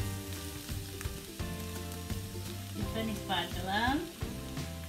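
A wooden spatula stirs and scrapes shredded cabbage around a metal wok, with the cabbage sizzling and many short scraping clicks. Background music plays underneath.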